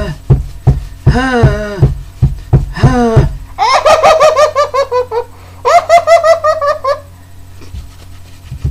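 A man's voice imitating someone running through bushes. First comes a run of short panting grunts, each falling in pitch. Then come two high-pitched, rapidly pulsing cries of about a second and a half each.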